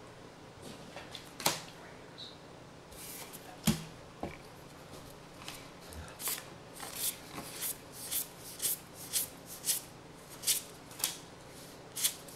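Magic: The Gathering cards flipped through by hand, a string of short snapping flicks about two a second from about six seconds in. Before that come two sharper, louder snaps.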